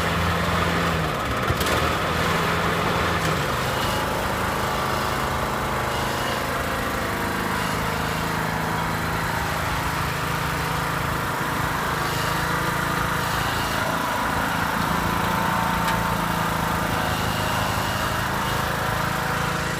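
Riding lawnmower engine running steadily, its pitch shifting slightly now and then.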